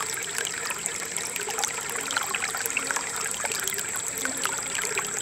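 Aquarium air stone bubbling: a steady stream of small pops and water trickling as the bubbles break at the surface.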